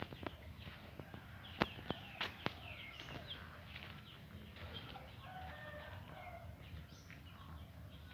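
Chickens clucking with short bird chirps in the background. About two seconds in come three sharp clicks.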